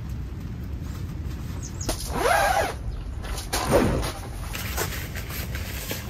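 A bird calls twice, about two seconds in and again a second and a half later, each call rising and then falling in pitch, the second sliding well down. A steady low outdoor rumble runs underneath.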